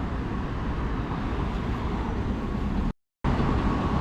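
Steady road traffic noise with a low rumble. The sound cuts out completely for a moment about three seconds in.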